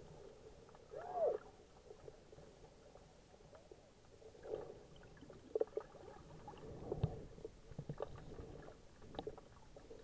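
Muffled underwater sound picked up through an action camera's waterproof housing in shallow water: low water movement and gurgling with scattered clicks and a few sharper knocks. A brief squeak rises and falls about a second in.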